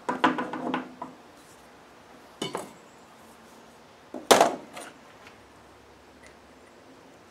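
Metal engine parts and hand tools clinking and knocking on a metal workbench while a piston is handled: a run of small clicks at the start, a single knock about two and a half seconds in, and a loud clank with a short ring a little after four seconds.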